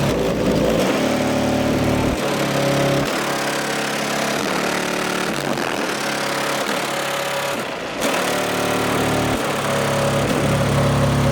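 A vehicle engine running, its pitch stepping up and down every second or two.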